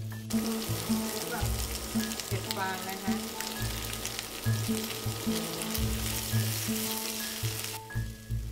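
Chicken, cashews, onion and straw mushrooms sizzling in hot oil in a frying pan as they are stirred, a dense crackling hiss that starts just after the start and cuts off near the end. Background music with steady low notes plays underneath.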